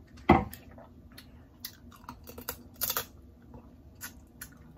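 A wine glass set down on the table with one sharp knock about a third of a second in, then scattered wet mouth clicks and smacks of eating with the fingers.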